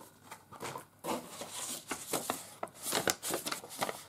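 Cardboard box and a folded paper sheet being handled and unfolded: rustling and crackling with a string of sharp paper clicks.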